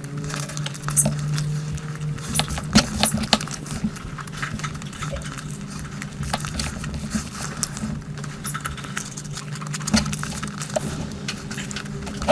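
Close-up eating sounds from a mukbang of biryani and curry: wet chewing and mouth smacks with many irregular small clicks, over a steady low hum.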